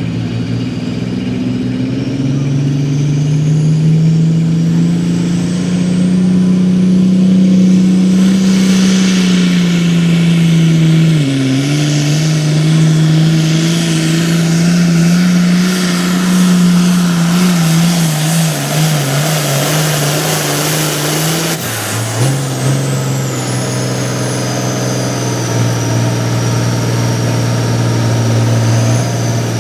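Turbocharged diesel hot farm pulling tractor running hard under load as it drags the sled, its engine note loud and steady with a high turbo whistle over it. The engine pitch dips briefly about 11 s in, then falls off sharply around 22 s as the pull ends, the whistle gliding down while the engine runs on at a lower, steady speed.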